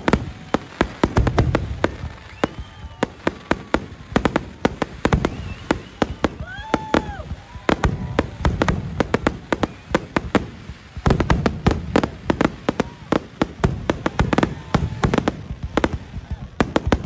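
Aerial fireworks bursting in a rapid barrage of bangs and crackles, many per second, growing denser and heavier about two-thirds of the way through.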